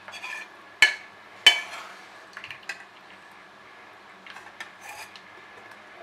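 Steel pan and steel tea strainer clinking against china cups while hot liquid is strained into them: two sharp clinks with a short ring in the first second and a half, then a few lighter taps.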